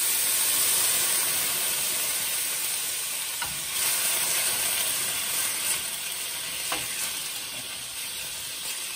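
A hot frying pan sizzling hard as chicken broth is poured in to deglaze the browned chicken drippings, the hiss fading gradually as the liquid heats. A couple of faint clicks come partway through.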